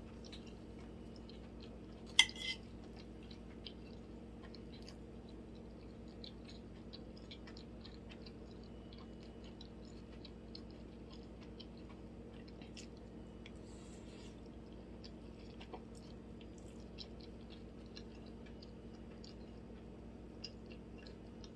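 Close-miked chewing of food, with small wet mouth clicks throughout and one sharp clack about two seconds in, over a faint steady hum.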